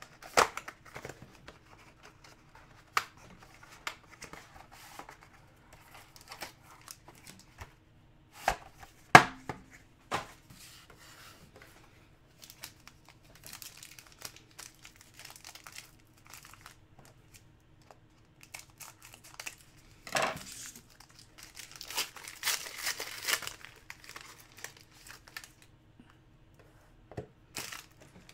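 Foil trading-card pack crinkling as it is handled and torn open, with a longer stretch of crinkling and tearing about two-thirds of the way through. A few sharp clicks and taps come earlier, the loudest about nine seconds in.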